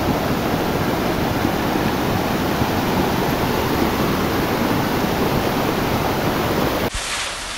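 Torrent of muddy floodwater rushing past, a steady, loud rush of water. Near the end it cuts off suddenly to a quieter, thinner sound as the recording changes.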